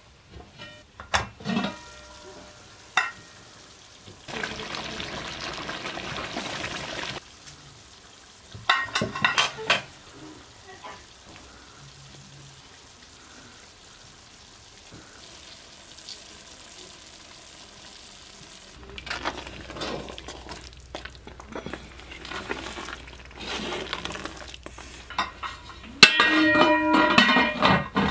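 Cooking at a large pot: scattered clinks and knocks of metal utensils and a few seconds of steady hissing. Near the end comes a loud clattering with a metallic ring as the metal lid is set on the pot.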